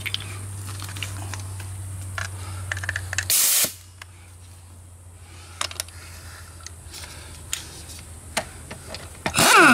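Air hose quick-coupler snapped onto a pneumatic impact wrench, with a short loud hiss of escaping air about a third of the way in and a few small clicks of handling. Near the end the impact wrench runs briefly on a wheel lug nut and winds down in falling pitch.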